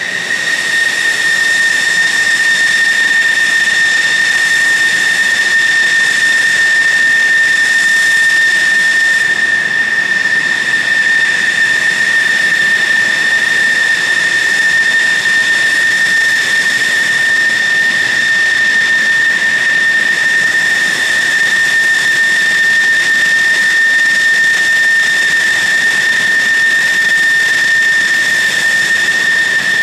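F-16 Fighting Falcon jet engine at taxi power: a loud, steady high-pitched whine over a rushing hiss.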